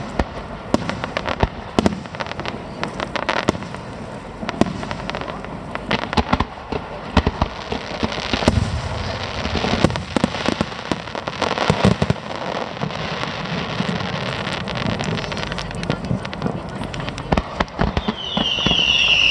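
Aerial fireworks going off: repeated sharp bangs of bursting shells with crackling between them. Near the end comes a high whistle that falls in pitch.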